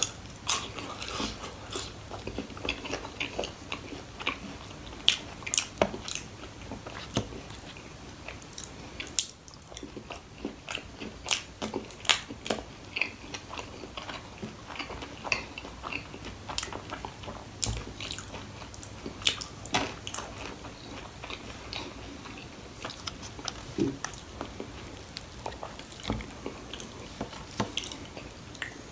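A person chewing and biting fried food close to the microphone, with irregular crisp crunches and wet chewing sounds.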